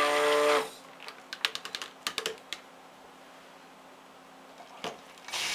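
Stick blender motor running in a pitcher of soap batter and cutting off under a second in, followed by a quick run of light clicks and taps.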